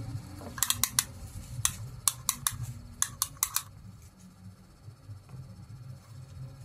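A quick, irregular run of about a dozen sharp clicks over about three seconds, over a low steady hum.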